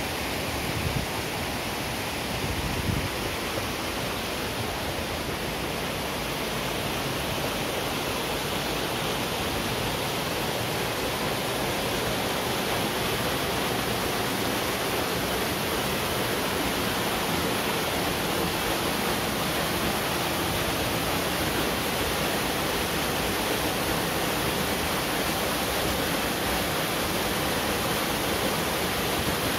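Waterfall running: a steady, even rush of falling water. A couple of brief low bumps come in the first few seconds.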